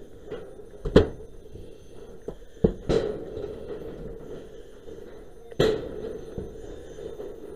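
Four sharp knocks and thuds from firefighting work on a fire-damaged roof: one about a second in, two close together near the three-second mark, and a last one past five and a half seconds, over a steady low background noise.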